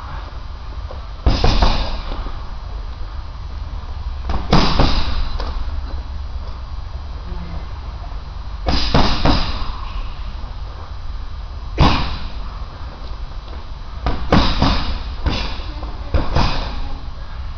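Gloved punches landing on a hanging Title heavy bag: dull thuds in single hits and quick double or triple combinations, a few seconds apart, over a steady low rumble.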